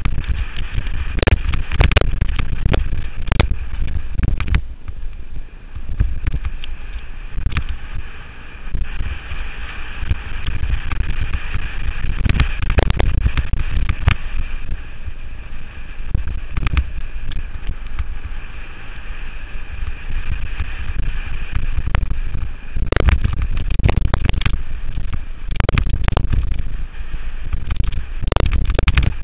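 Mountain bike being ridden over a rough trail: wind buffeting the microphone with a heavy rumble, and frequent sharp knocks and rattles as the bike hits roots and rocks, bunched near the start and again near the end.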